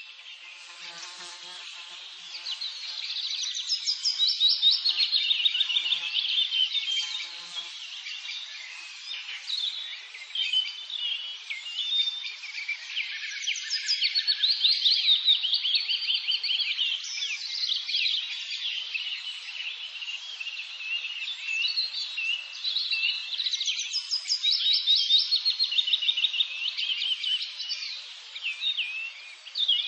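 A dense chorus of small songbirds chirping and twittering rapidly, many calls overlapping, swelling a few seconds in.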